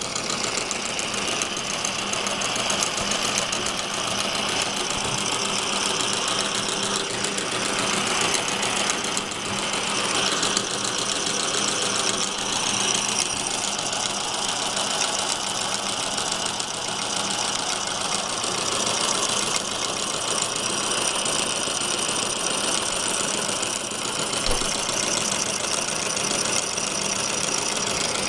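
Small homemade model steam engine, built from scrap brass and steel, running steadily at speed: a fast, even mechanical rhythm with a hiss.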